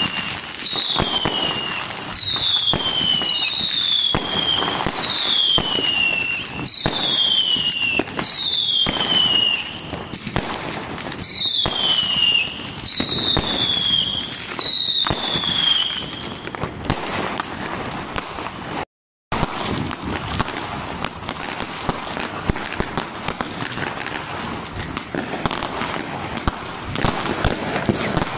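Fireworks: a string of whistling shots, about one a second, each whistle sliding down in pitch, over steady bangs and crackling. After a brief gap about two-thirds of the way through, the whistles stop and dense crackling and popping of fireworks goes on.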